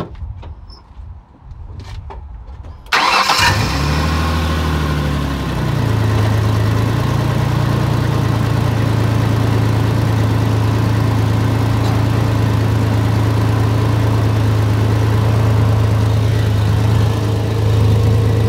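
A 2004 Ford Ranger's engine starts about three seconds in, runs at a fast idle, then settles by about six seconds into a steady idle. Its exhaust leaks just ahead of the flex pipe, letting out unmuffled, puttering exhaust noise.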